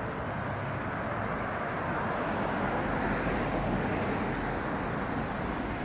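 Street traffic: a steady wash of passing cars' tyre and engine noise.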